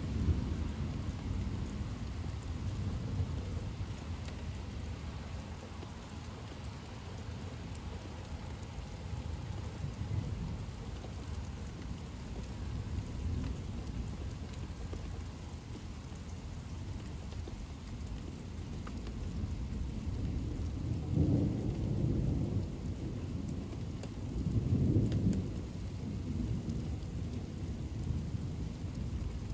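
Steady rain falling through a thunderstorm, with low rumbles of thunder; the two loudest rumbles come past the middle, a few seconds apart.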